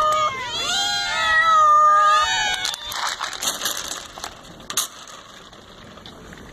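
A group of cats meowing at once, several overlapping calls for the first few seconds. Then a rattle and scattered clicks as dry kibble is tossed onto the wooden deck, fading to quieter rustling as the cats start eating.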